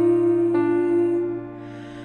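A woman singing over digital piano accompaniment: a long held note with a piano chord joining about half a second in, both dying away about a second and a half in.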